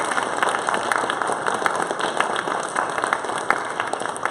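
An audience clapping: dense, steady applause made of many overlapping hand claps.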